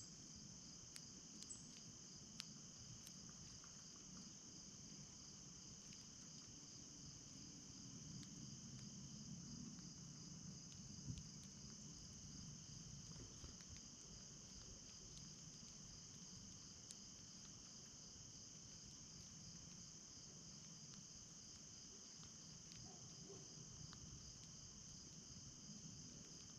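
Faint, steady chorus of insects, a continuous high-pitched trill with no break, with a few soft clicks in the first few seconds.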